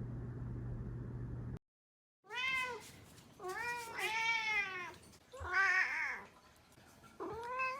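Young cat meowing about five times in a row, each meow rising and then falling in pitch, one of them rougher and harsher, after a steady low hum that cuts off into a moment of silence.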